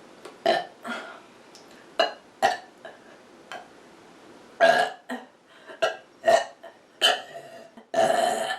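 A person burping repeatedly: a quick series of about ten short burps, the loudest about halfway through, ending with a longer, drawn-out burp near the end.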